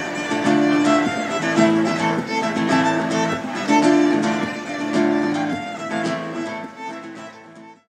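Violin and acoustic guitar playing a tune together, the violin holding long notes over steady guitar picking, fading out near the end.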